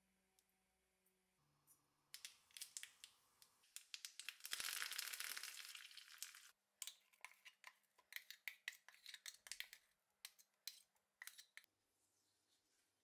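Tempering frying in hot oil in a small pan: sharp crackles and pops, with a loud, dense sizzle for about two and a half seconds near the middle when curry leaves hit the oil. The popping goes on more sparsely afterwards and dies away near the end.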